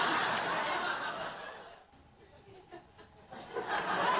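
Laughter and chuckling that die away about halfway through, followed by a brief quieter gap.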